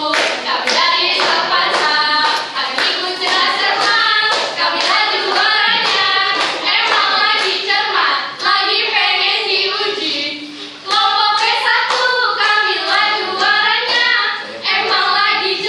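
Three teenage girls singing a team cheer song together, clapping their hands along, with a brief break a little past two-thirds through.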